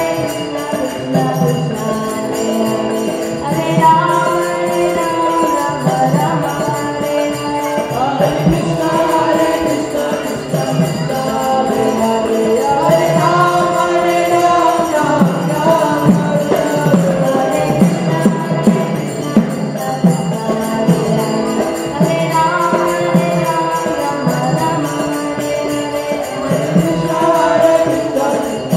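Kirtan music: devotional chanting sung in long melodic phrases over a steady beat, with jingling hand cymbals, accompanied by what is likely a harmonium.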